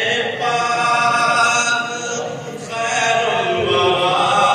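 A man's voice singing a naat unaccompanied into a microphone, in long, drawn-out melodic phrases. There is a brief break a little past halfway, then he starts a new phrase.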